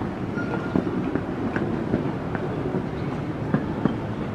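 Steady low rumble of busy city background noise, with a few scattered sharp clicks standing out, the loudest two close together near the end.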